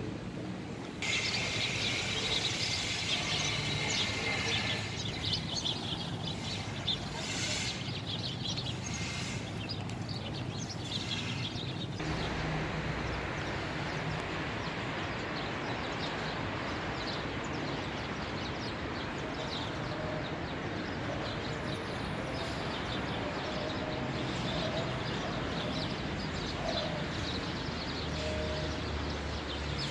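Outdoor ambience. For the first ten seconds or so it carries a dense chorus of high chirping birds, which stops abruptly at a cut. After that there is an even, steady background of the street.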